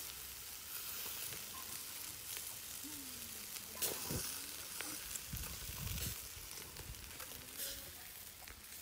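Duck pieces sizzling on a wire grill over glowing charcoal, a steady hiss, with a few sharp clicks of metal tongs against the grate as the pieces are turned, the loudest about four seconds in.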